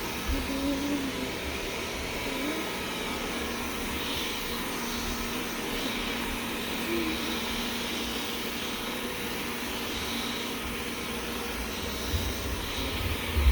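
Robot vacuum cleaner running steadily, its motor giving an even whirring hiss.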